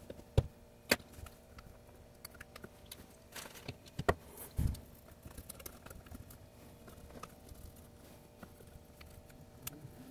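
Scattered light clicks and taps of hands and small tools working on a sewing machine during cleaning. One duller knock comes about four and a half seconds in.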